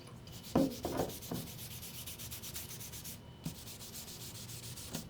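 Sandpaper rubbing on a dyed wood sample in quick back-and-forth hand strokes, several a second, sanding the dye back so the darker pigment stays in the flame figure. A few knocks sound in the first second or so, and the strokes pause briefly past the three-second mark before resuming.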